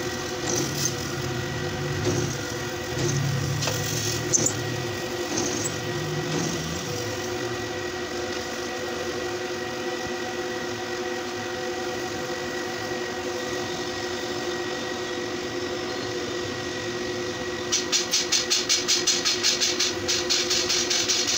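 Pillar drill press motor running steadily with a steady hum, its bit cutting into a flat steel bar unevenly over the first several seconds. Near the end, fast rasping strokes, about four a second, as a hand file works the bar.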